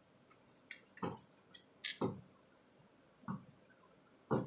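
Scattered light clicks and a few dull knocks, about half a dozen in all, from hands handling a small plastic camcorder and its cables.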